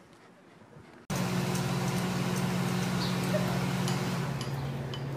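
Steady mechanical hum with a broad hiss, starting abruptly about a second in; the hum drops slightly in pitch near the end.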